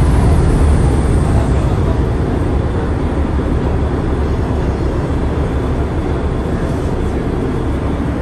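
Passenger ferry's engines running steadily, a deep rumble with rushing noise over it, slowly getting a little quieter.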